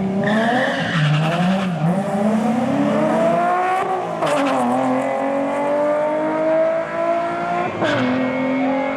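Pontiac Grand Am GT's 3.4-litre 3400 V6 launching at wide-open throttle on a drag strip pass: the engine holds steady, then revs climb from just after the start, drop sharply at a gear change about four seconds in and again about eight seconds in, and climb again after each shift.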